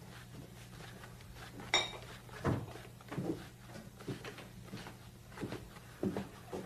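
A short ringing clink about two seconds in, then dull knocks about one every 0.7 s, over a steady low hum.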